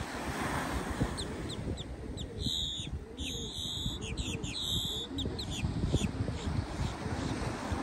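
Birds calling: a string of short, high chirps throughout, with several louder, harsh, buzzy calls from about two and a half to five seconds in.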